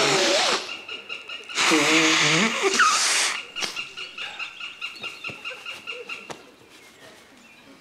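Wordless vocal noises from a man: a short breathy burst at the start, then a longer, louder breathy groan about two seconds in that ends in a short rising squeak.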